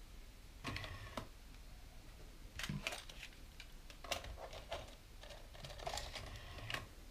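Clusters of small plastic clicks and rattles as a MiniDisc cartridge is handled and pushed into the slot of an Aiwa ADN-1 MiniDisc deck, with the deck taking the disc in; about four bursts of clicking spread over several seconds.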